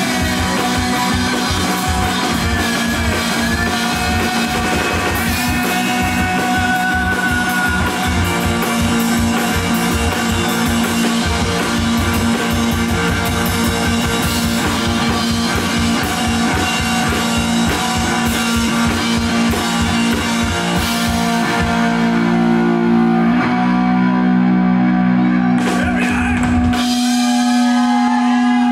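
Live rock band: electric guitar and drum kit playing a fast, steady beat. Near the end the drums stop and the guitar is left holding wavering notes that ring on.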